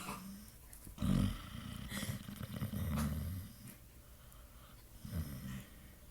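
Pit bull snoring in its sleep: low, rattling snores in three bursts, the longest in the middle.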